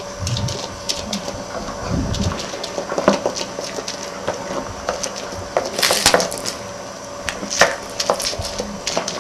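Irregular knocks and crunches of wild olluco (kita olluco) plants being crushed by hand on a flat stone, with a denser run of knocks about six seconds in.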